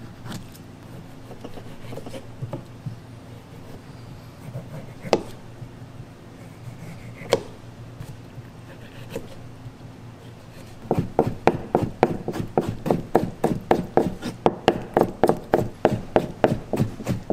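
Kitchen knife cutting bamboo shoots on a cutting board: a few scattered knocks, then about two-thirds of the way in a quick, even run of cutting strokes at about four a second as the slices are cut into thin strips.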